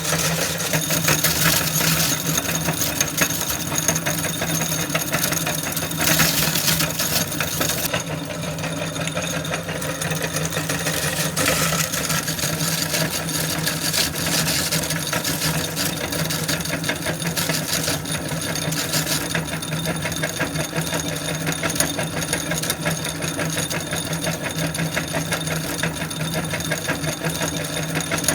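Meat grinder running with a steady motor hum while it crushes chips, a dense, fast crackling crunch throughout. The crunching swells louder a few times, about a second in, around six seconds in and near the twelve-second mark.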